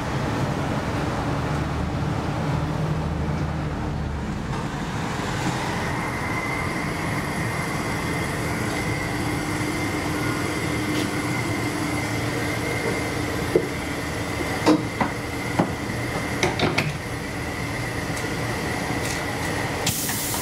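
Inside a 1953 ex-Oslo SM83 tram (A51 no. 210): the car gives a steady rumble, and a steady high-pitched tone comes in about six seconds in and holds. A few sharp clicks and knocks come about two-thirds of the way through.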